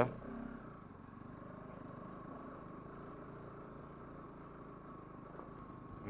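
Motorcycle engine running steadily at low speed on a dirt track, heard from the rider's own seat.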